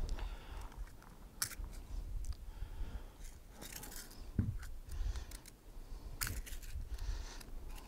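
Handling of a double-barrel percussion muzzleloading shotgun: about four sharp, small metallic clicks from its hammers and lock, spread through a few seconds, over a low rumble of wind on the microphone.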